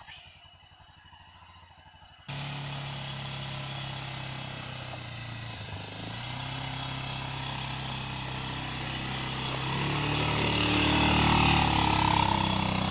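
Quad bike (ATV) engine running as it drives along a dirt trail. It comes in abruptly about two seconds in and grows steadily louder as the machine comes close, its note rising a little near the end.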